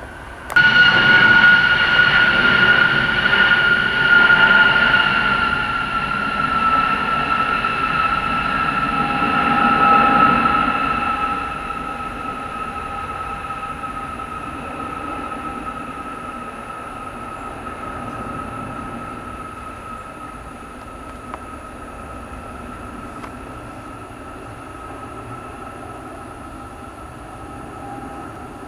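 Military jet aircraft passing overhead: a loud jet-engine whine that starts abruptly, falls slowly in pitch and fades gradually over about twenty seconds as the aircraft draws away.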